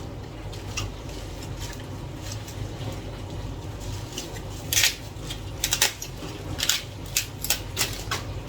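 Kitchen handling of fresh sukuma wiki greens: scattered rustles and light knocks, growing busier about halfway through, over a low steady hum.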